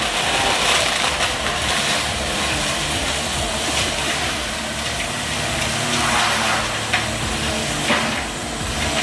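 Excavator working a forestry mulching attachment: its engine runs under load while wood is crushed and shredded, with two sharp cracks about seven and eight seconds in.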